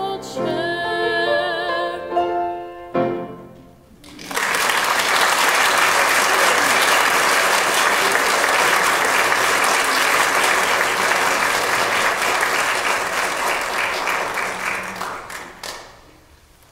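A woman's classical singing voice, with vibrato, and piano accompaniment finish a song about three seconds in. About a second later the audience starts applauding, clapping steadily before the applause tapers off near the end.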